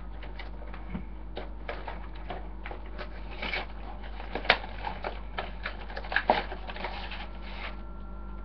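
A cardboard trading card deck box and its contents being handled and opened: irregular rustling with small clicks and taps, a few of them louder past the middle.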